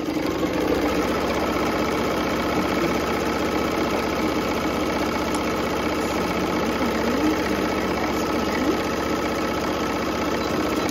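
Electric sewing machine stitching continuously at a steady speed through two layers of apron fabric, its motor and needle running without a pause.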